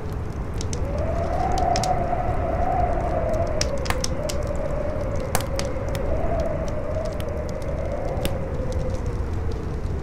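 Campfire crackling with scattered sharp pops under a strong howling wind, whose wavering moan swells about a second in over a low rumble of wind.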